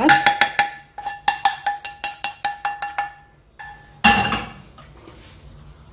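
A metal spoon knocks and scrapes against a frying pan and a wire sieve over a stainless-steel bowl, knocking out toasted milk powder. Rapid metallic clinks that ring briefly run for about three seconds, then one louder knock comes about four seconds in, followed by soft scraping.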